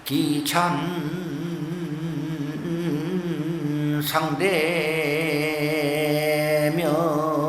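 A man's voice chanting a Korean Buddhist verse very slowly, each syllable drawn out into long, wavering held notes. A new syllable starts about four seconds in.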